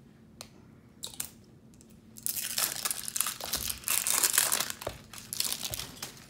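Plastic wrapping crinkling and tearing as it is peeled off an L.O.L. Surprise toy ball by hand. A few light clicks come first, then steady crinkling starts about two seconds in.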